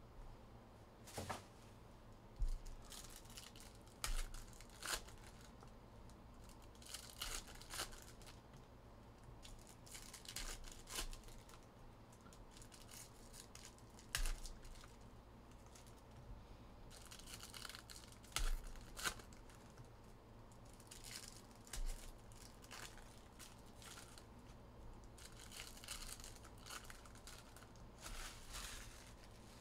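Trading-card pack wrappers being torn open and crinkled by hand, with cards being handled. Irregular crinkly bursts with a few sharp taps.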